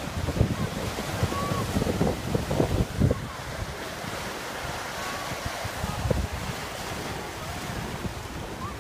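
Ocean surf breaking and washing over rocky ledges in uneven surges, with wind buffeting the microphone.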